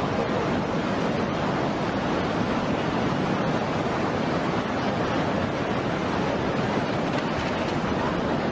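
Steady rush of moving storm water, with wind noise on the microphone.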